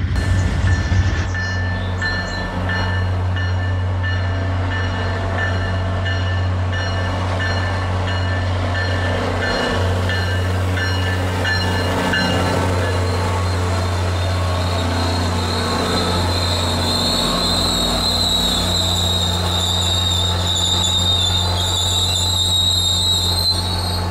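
MBTA commuter train passing: the diesel locomotive's steady low drone and the coaches' wheels running on the rails, with a high-pitched wheel squeal that grows stronger toward the end. The first second is another passing train, cut away abruptly.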